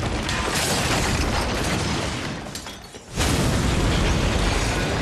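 Film sound effects of a huge blaze: a dense rushing roar of flames over a deep rumble. It fades for a moment nearly three seconds in, then comes back suddenly with an explosive burst.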